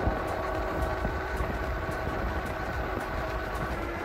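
Rad Power RadCity Plus 5 electric bike under way at speed: a steady whine from its hub motor, several tones held at one pitch, over a low rumble of wind on the microphone.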